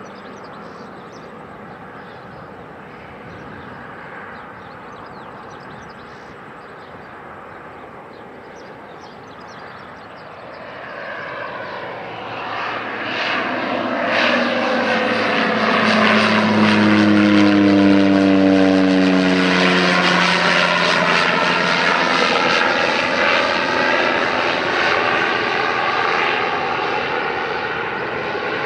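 Single-engine propeller plane passing low overhead: its drone swells from about ten seconds in, peaks near the middle with its pitch falling as it goes by, then fades slowly as it flies away. Before it, only a faint steady background rumble.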